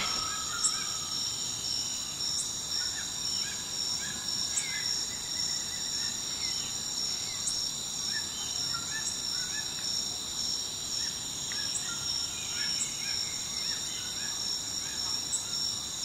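Short, scattered bird chirps over a steady, high-pitched insect drone.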